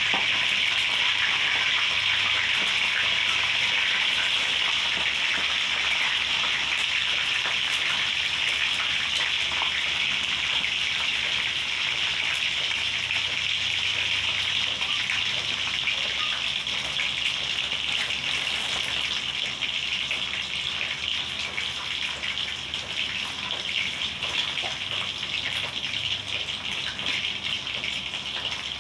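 Tinapa (smoked fish) frying in hot oil in a wok: a steady, crackling sizzle that slowly dies down.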